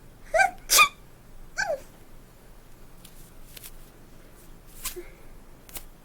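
A woman sneezing: a voiced gasp just before a loud sneeze about a second in, then a short vocal sound after it. A few faint short sounds follow later.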